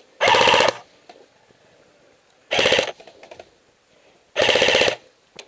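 Airsoft electric gun firing three short full-auto bursts, each a fast clatter of shots from the motor-driven gearbox, the middle burst the shortest.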